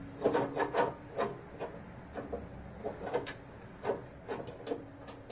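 Metal parts of a garden tractor attachment knocking, clicking and scraping as they are worked into place by hand: a bolt being slid through a mounting hole. Short irregular knocks, the clearest about a third of a second in, just after a second, and a little after three seconds.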